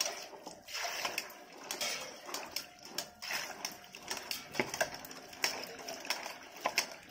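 Hands washing peeled potato pieces in a steel bowl of water: irregular splashing and sloshing, with many small knocks of potato against the bowl.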